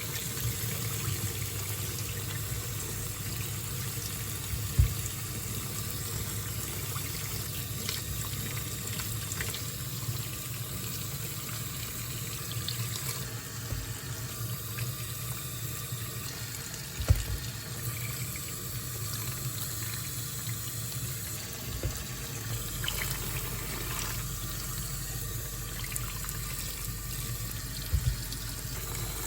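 Tap water running steadily into a sink, with three brief knocks against it, the loudest about midway.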